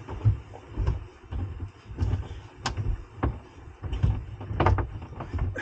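Handling noise as electrical cables are pulled through and tucked along the inside of a boat's hull: irregular low thuds and rustling, with a few sharp clicks and knocks.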